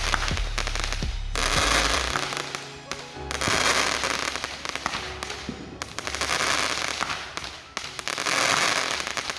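A small consumer firework cake ("Riding Hard", about seven shots) firing its shots one after another. Each shot bursts into a crackling hiss of rapid small pops lasting a second or two, with a new shot about every two seconds.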